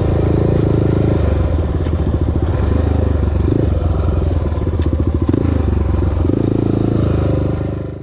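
Single-cylinder four-stroke engine of a 2008 Honda TRX400EX ATV running on a dirt trail, the throttle opening and closing as the quad slows. The sound fades out near the end.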